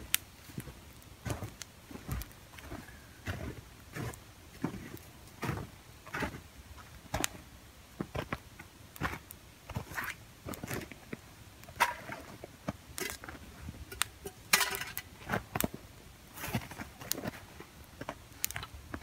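Footsteps crunching in snow, a short crunch roughly every half to three-quarters of a second, with a longer rustle about fifteen seconds in.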